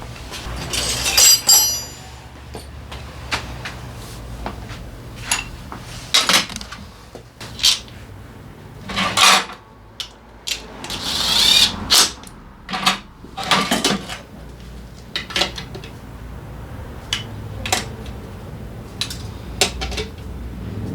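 Hand tools and metal scooter parts clinking, knocking and scraping as parts are fitted together during a starter pinion gear repair. A clink rings out briefly about a second in, and a longer scrape comes about halfway through.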